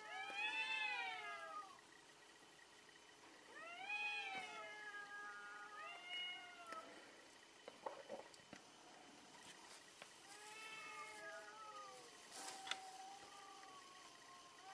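Domestic cats yowling at each other in a face-off: about five long, drawn-out wails that rise and fall in pitch, the threat calls of cats squaring up to fight. A few brief soft clicks near the middle.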